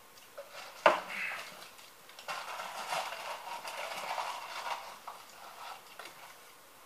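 One sharp knock about a second in, then a few seconds of crinkling and rustling from fast-food paper wrappers and a cardboard fries carton being handled.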